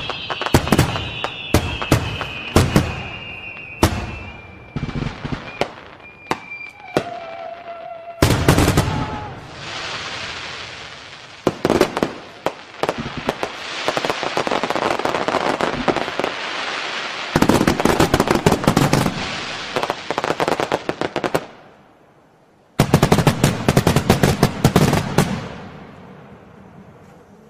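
Fireworks and firecrackers: a run of sharp bangs and rapid crackling in several rolls, opening with a whistle that falls in pitch, with a brief lull a little after the middle.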